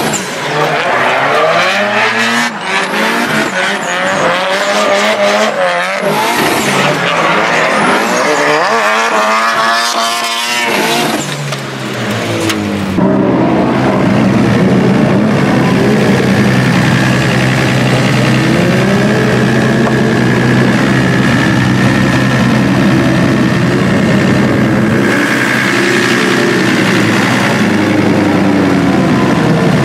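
Drift car's engine revving up and down with tyres squealing, heard from inside the cabin, for about the first twelve seconds. Then it cuts abruptly to a steady low drone that holds to the end.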